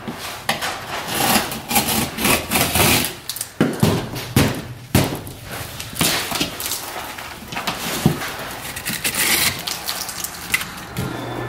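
Utility knife scoring a cement backer board in repeated rough scraping strokes, with a few sharper cracks as the board is snapped along the scored line.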